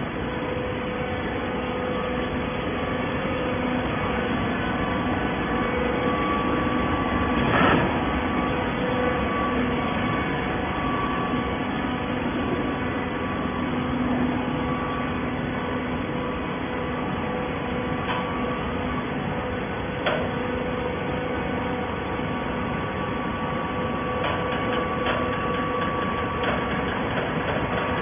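Plastic bottle baler machinery running steadily: a constant motor hum with a few sharp knocks, the loudest about seven or eight seconds in and another about twenty seconds in.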